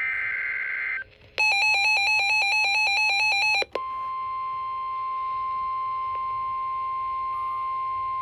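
Emergency Alert System tones: the end of a SAME digital data burst for about the first second, then a buzzy electronic alert warbling rapidly between two pitches for about two seconds, then the NOAA Weather Radio 1050 Hz warning alarm tone, one steady pitch starting about four seconds in.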